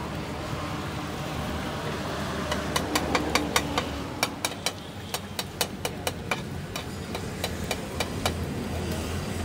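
Metal spatula tapping and scraping on a flat metal frying pan while eggs are worked in it: a run of sharp metallic clicks, about three or four a second, from about two and a half seconds in until about eight seconds, over a steady low background rumble.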